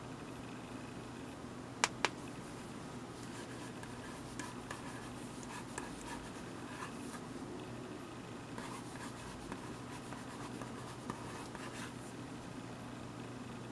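Plastic stylus scratching faintly across the screen of an 8.5-inch LCD writing tablet in short handwriting strokes, after two sharp clicks about two seconds in as the screen is cleared with its erase button.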